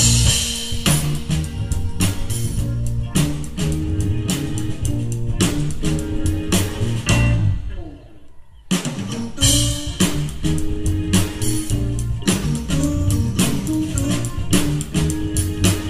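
A live instrumental band of electric guitar, bass, keyboards and drum kit playing. About halfway through the band stops dead for about a second, then comes back in together.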